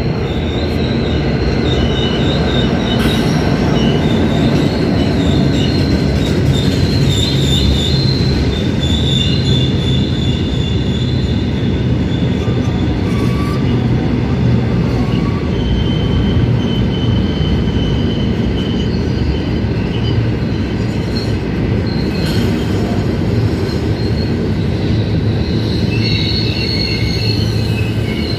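Loaded freight train rolling past, a steady heavy rumble of wagons on the rails with high wheel squeal coming and going over it, strongest in the first third and again near the end.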